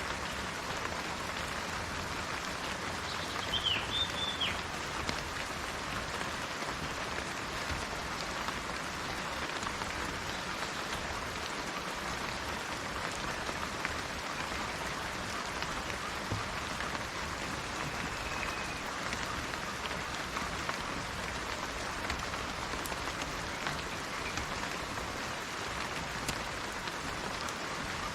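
Steady rainfall hissing in a rainforest, with a quick cluster of bird chirps about three to four seconds in and one short faint bird call near the middle.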